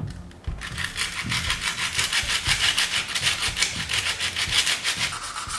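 Rapid hand scrubbing with an abrasive tool on the aluminium gearbox casing, several rasping back-and-forth strokes a second, roughening the cracked oil-drain area.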